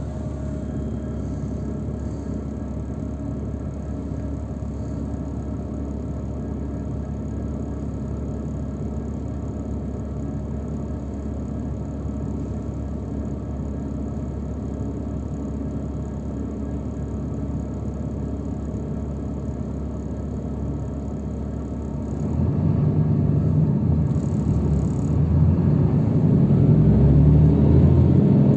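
Engine and road noise heard from inside a moving transfer vehicle: a steady hum that grows louder and rumblier about three-quarters of the way through, as the vehicle speeds up or the road surface changes.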